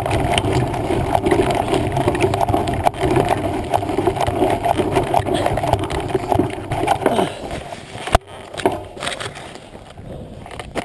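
Mountain bike riding over a rough woodland trail: steady tyre and wind noise with constant rattling and knocking from the bike and the handlebar-mounted camera. About eight seconds in there is a sharp knock and the noise drops off, leaving a few scattered bumps.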